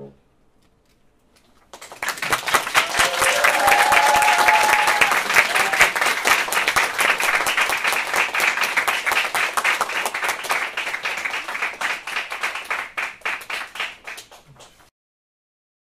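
Audience applause in a small hall. It starts about two seconds in after a moment of silence, stays strong, then thins out and stops near the end.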